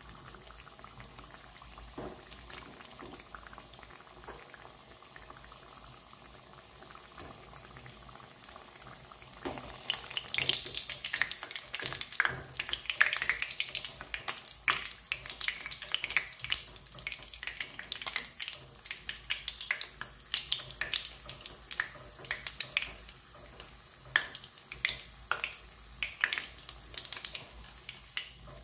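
Donut deep-frying in sunflower oil: a low steady sizzle for the first nine seconds or so, then loud, irregular crackling and popping as a wire spider strainer turns the donut and lifts it from the oil.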